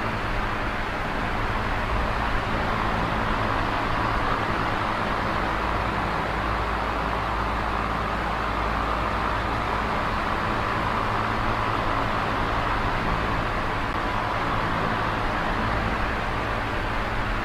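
Small electric oscillating fan running steadily: an even whoosh of moving air over a low motor hum.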